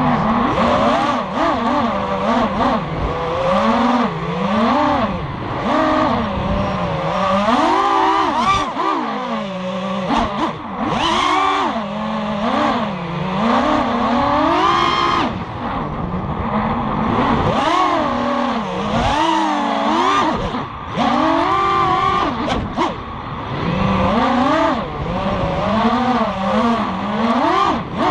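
Onboard sound of an FPV racing quadcopter's Lumenier 2204 2300 kV brushless motors and 5-inch props whining, the pitch swooping up and down constantly with the throttle during freestyle flying. The sound drops briefly a few times as the throttle is cut.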